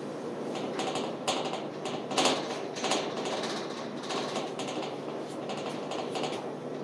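Steady low hum of a ship's machinery under way, with a run of irregular clicks and rattles that is loudest about two seconds in.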